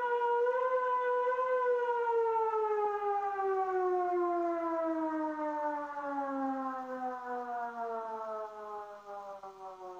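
Civil defense siren winding down: one wailing tone holds steady for about two seconds, then slowly falls in pitch and fades away.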